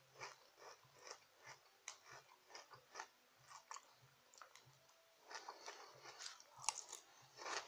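Quiet close-up chewing of crunchy breakfast cereal: soft, irregular crunches, with a spoon scraping and clinking in a ceramic bowl near the end.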